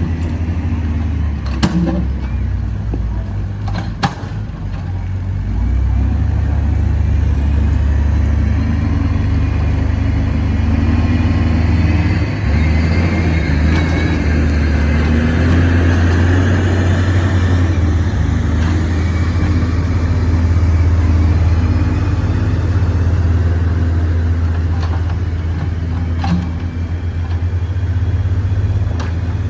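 Diesel engine of an XCMG XE60WA wheeled excavator running steadily under work load, with a whine that rises and falls in pitch as the machine works. A few sharp knocks are heard near the start and again near the end.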